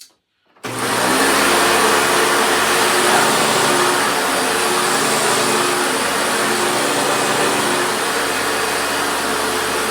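Early-2000s Hoover upright vacuum cleaner switched on about half a second in, its motor then running steadily with a loud whirring hum.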